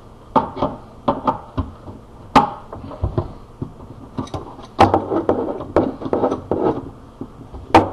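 Adjustable wrench tightening a threaded fitting on a cold-water shut-off valve: irregular metal clicks and knocks, with a quick run of ratchety ticks and scraping in the middle.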